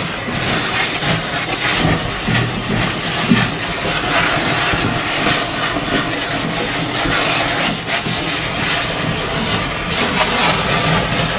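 Industrial vacuum unit running, its hose sucking coolant and sludge out of a CNC machine's coolant sump: a loud, steady rushing hiss of air and liquid drawn up the hose, surging unevenly. It grows louder right at the start.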